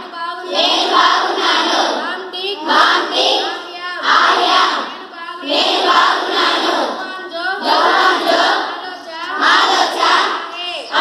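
A group of schoolgirls' voices in unison, voicing short Sindhi phrases of a second or two each with brief pauses between them.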